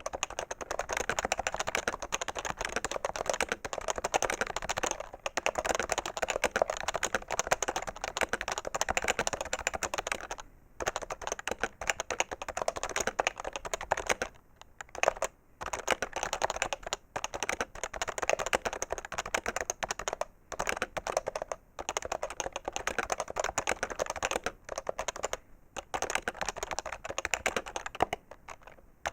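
Continuous fast typing on a PFU HHKB Professional 2 keyboard with Topre capacitive switches: a dense patter of key strokes broken by brief pauses every few seconds.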